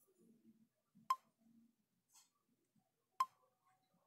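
Two sharp clicks about two seconds apart, each with a short ring, from taps on a phone's on-screen keyboard, with a faint low murmur between them.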